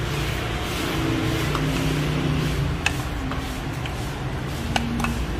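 Steady street noise with passing traffic, broken by a few sharp clicks about three seconds in and again near the end.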